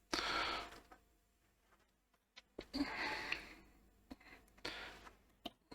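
Three soft breaths or sniffs close to the microphone, with a few faint small clicks between them.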